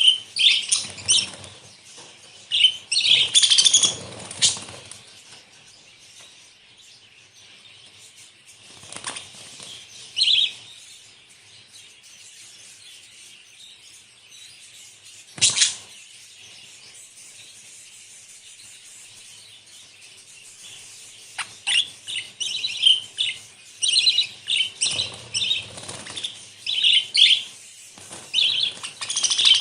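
Budgerigars chirping and chattering in bursts, with wing flapping. A quieter stretch in the middle is broken by a single sharp click, and the chirping gets busier and more continuous in the last third.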